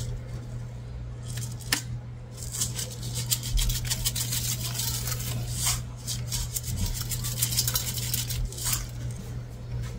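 Spice shaker jars being shaken, dried seasoning rattling through the shaker lids in quick repeated shakes, with a few clicks as the jars are handled. A steady low hum runs underneath.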